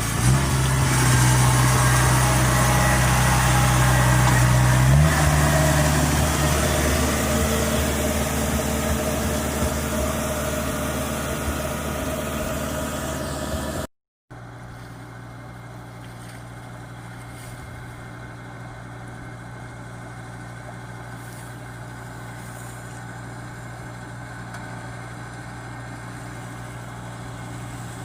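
Kubota combine harvester's diesel engine running steadily, its pitch stepping up about five seconds in. After a brief gap halfway through, the engine runs on, quieter and steady.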